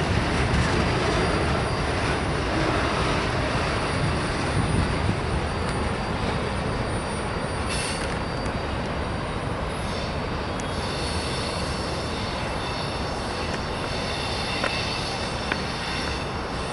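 Freight train's autorack cars rolling past with a steady rumble of wheels on the rails. From about halfway through, a thin high squeal of wheels on the curving track joins in.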